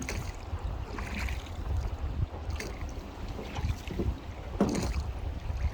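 Wind rumbling on the microphone over moving river water, with a few short knocks and splashes, the clearest about a second in and near the end.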